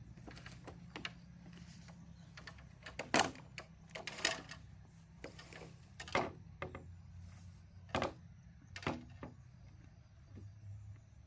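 Irregular knocks and clatter of hard objects being handled: light taps with about five sharper knocks spaced a second or two apart, over a low steady hum.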